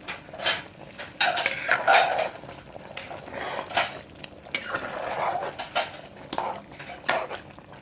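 A spoon stirring a pot of curry chicken, with irregular clinks and scrapes against the pot.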